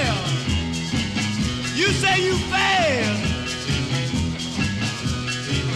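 Background music: a rock and roll song with a steady beat and sliding melodic notes.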